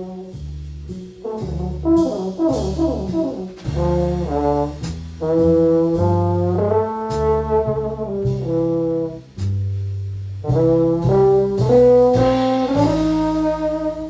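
Live jazz from a trio of brass horn, bass and drums: the horn plays a slow melody of long held notes over walking bass notes, with light cymbal and drum strokes now and then.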